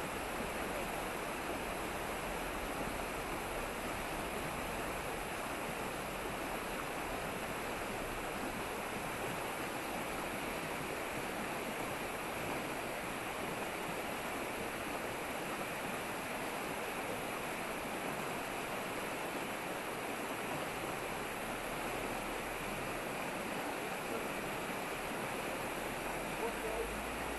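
A fast mountain river rushing over rocks and rapids: a steady, unbroken rush of water.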